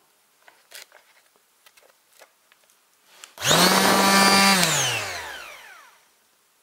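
Bosch PSM 80 A electric detail sander switched on briefly while held free of the work: the motor starts at full speed, runs with a steady whine for about a second, then is switched off and winds down, its pitch falling as it fades. Light handling clicks come before it.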